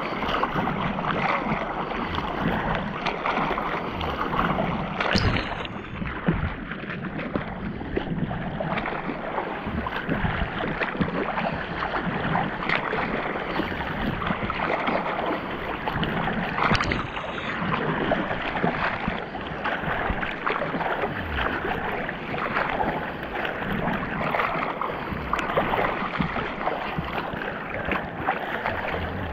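Choppy sea water sloshing and splashing against a camera bobbing at the surface: a steady watery rush broken by irregular splashes.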